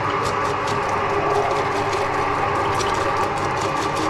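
DQ180 electric vegetable cutter running with its dicing blade fitted, chopping chilli fed down the feed tube. It makes a steady motor whine with faint irregular clicking.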